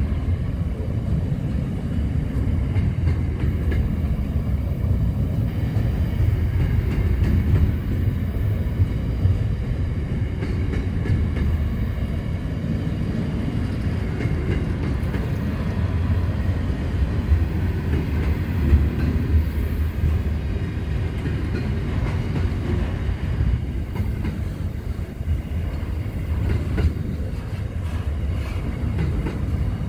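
Container freight wagons rolling past on the track: a steady low rumble of wheels on rail, with a few sharp clicks in the second half.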